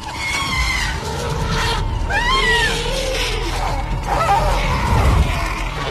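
Several high, arching animal squeals that rise and fall in pitch, in the thick of a hyena attack on elephants, over background music.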